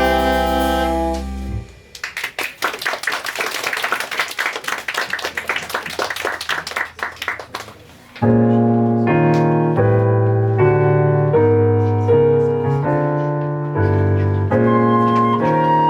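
A band's held final chord cuts off, an audience applauds for about six seconds, then a keyboard begins playing a steady run of chords that open the next number.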